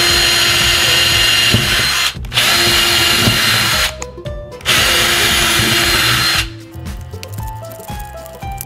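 Ryobi cordless drill running in three bursts, drilling screw holes into painted door trim. The motor holds a steady pitch and stops briefly between runs. After the last run, soft background music remains.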